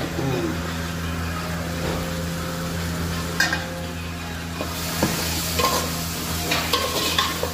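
A spatula stirs and scrapes tomatoes in an aluminium pot as they fry and sizzle in oil with chilli powder, over a steady low hum. The sizzling grows louder about halfway through, with a few sharp scrapes against the pot near the end.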